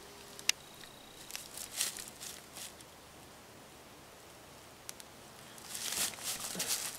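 Footsteps and rustling in dry leaf litter as a disc golfer shifts his stance and steps into a throw. There is a sharp click about half a second in, and a denser flurry of rustling near the end as he takes his steps and lets the disc go.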